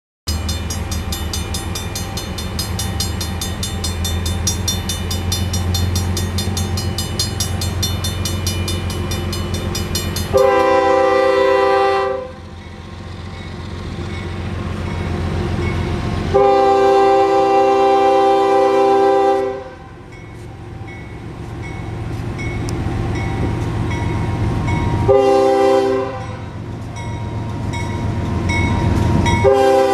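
Railroad crossing bell ringing rapidly at the grade crossing as the gates lower. Then the lead Union Pacific locomotive's air horn sounds the crossing signal: two long blasts, a short one, and a final long blast. Between the blasts the rumble of the approaching freight train grows louder.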